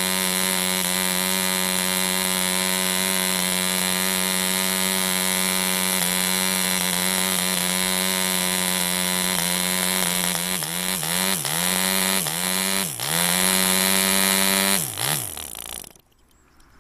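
1945 French Stab 1.25 cc two-stroke model diesel engine with a propeller running steadily at high speed, then starving as its fuel runs out: about ten seconds in its pitch starts dipping and recovering several times before it dies about fifteen seconds in and the propeller winds down.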